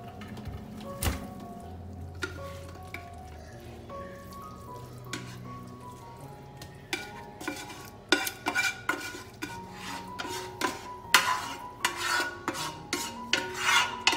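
A spatula scraping and knocking cooked rice out of a metal pressure cooker pot into a glass baking dish, in quick irregular strokes that start about halfway through and grow louder and denser toward the end. Background music plays underneath.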